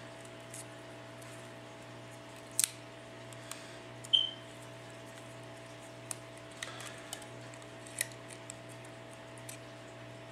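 Scattered sharp clicks and snaps of a pry tool working a cracked LCD and digitizer assembly loose from an LG G2 phone's frame; the loudest come about two and a half and four seconds in. A steady electrical hum runs underneath.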